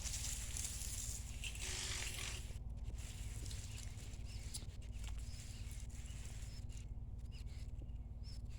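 Hands digging and rustling through loose soil and pine straw for about the first two and a half seconds, then quieter scattered light scrapes and clicks. A few faint, short bird chirps come in over it.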